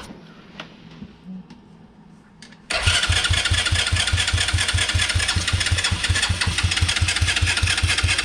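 A freshly swapped-in ATV engine being cranked over by its starter, a steady even chug of about five beats a second that begins suddenly about three seconds in and never catches. The engine does not fire, which the owner puts down to the spark plug wire.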